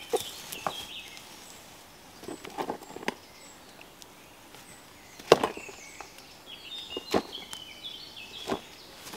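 Chicken of the woods bracket fungus being cut and broken off an oak trunk: scattered sharp cracks and snaps, the loudest about five seconds in.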